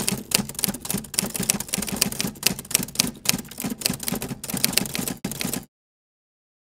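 Typewriter typing sound effect: rapid, irregular key clacks that stop abruptly about five and a half seconds in.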